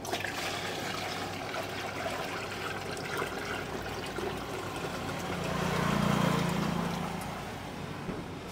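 Water being poured into a pan of simmering masala gravy, a steady trickling and splashing. About five and a half seconds in, a low hum swells up and fades again.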